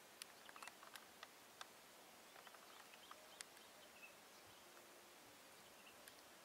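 Near silence: faint outdoor hiss with scattered soft clicks and a few short, high bird chirps.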